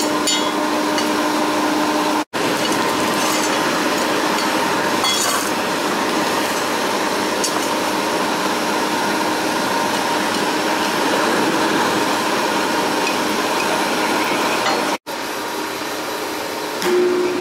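Steady, loud rushing noise of workshop metalworking equipment, with faint humming tones, cut off abruptly twice: about two seconds in and near the end.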